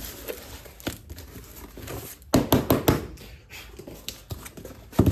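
Engine parts being handled and set down in a box: light knocks and taps, with a quick cluster of them about two and a half seconds in and another sharp knock near the end.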